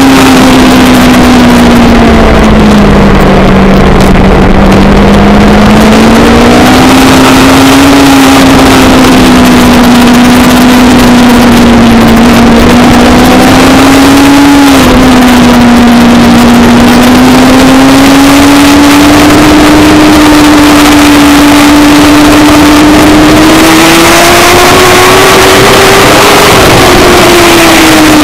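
A motorsport vehicle's engine held at sustained high revs at racing speed on a circuit, very loud. Its note sags and climbs gently, drops abruptly about halfway through, and rises again before easing near the end.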